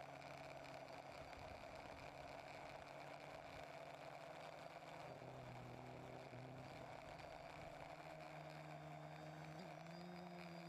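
TBS Discovery quadcopter's electric motors and propellers humming faintly and steadily, heard from the onboard camera; the pitch shifts with throttle and steps up near the end.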